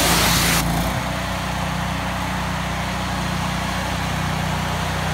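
High-pressure water spray hissing, cut off about half a second in as the spray stops. The 24 HP Honda GX690 twin-cylinder engine of a 3500 PSI, 8 GPM pressure washer runs on steadily, its note shifting slightly about a second in.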